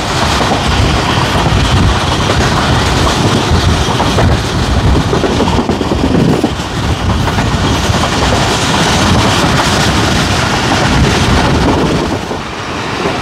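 Passenger train running at speed, heard from on board: a steady rumble and clickety-clack of the coaches' wheels on the track.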